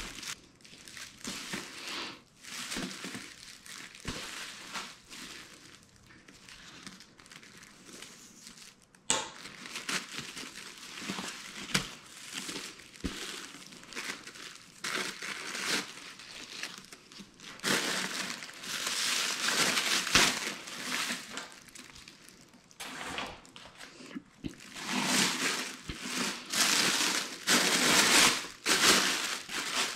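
Fabric and plastic rustling as a cloth helmet bag is handled and opened, then a thin plastic bag crinkles as it is worked off a motorcycle helmet, louder in the second half. A few sharp clicks sound along the way.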